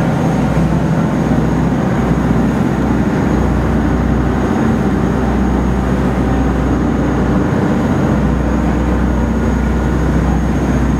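A fishing boat running at speed through rough seas: a steady, loud rush of wind buffeting the microphone over the drone of the boat's engines and water rushing past the hull.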